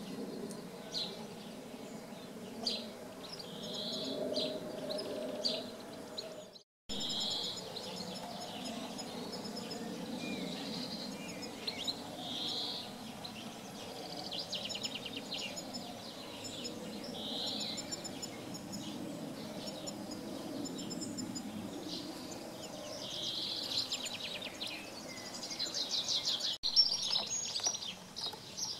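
Small birds chirping and trilling again and again over a low, steady buzzing hum of bees in flight. The sound cuts out for a moment about six and a half seconds in.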